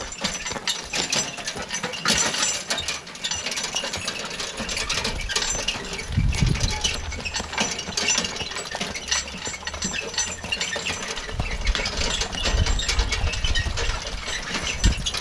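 A horse-drawn forecart and trailed hay tedder rattling and clinking as they roll over a rough dirt yard, with a dense run of metallic clicks and bouts of low rumbling.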